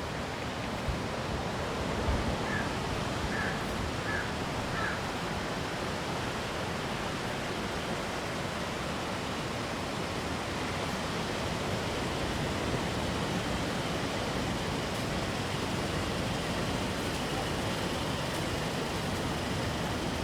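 Steady rushing noise of rough surf and wind on the shore after a typhoon. Four short high chirps come a few seconds in.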